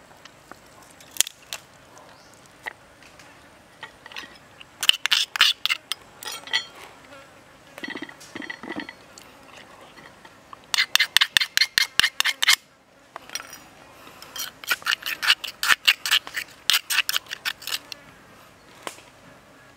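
An insect calling in repeated bursts of rapid, evenly spaced clicking pulses, about three runs of a second or more each. One run cuts off suddenly.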